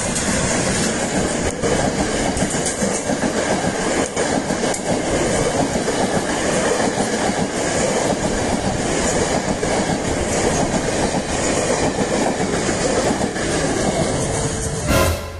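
Train passing at speed: a steady rumble and rush of wheels on rails with a few faint clicks over rail joints. It cuts off abruptly near the end.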